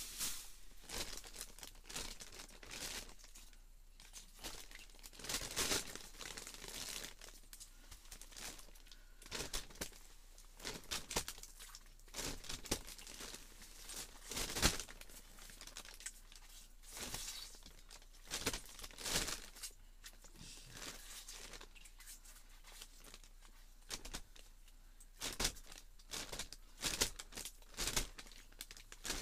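Irregular crinkling and rustling of a plastic bait bag, with scattered scrapes and crunches of ice as hands work at the holes in the ice.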